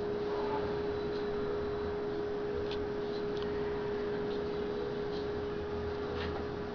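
A steady, unbroken single-pitch hum over a background hiss, with a few faint, short ticks scattered through it.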